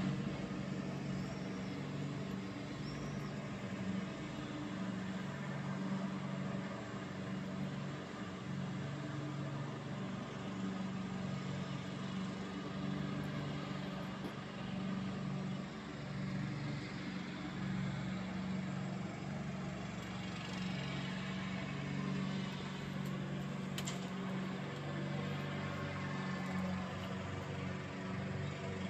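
A steady low mechanical hum with a slightly wavering pitch, like a motor running without a break.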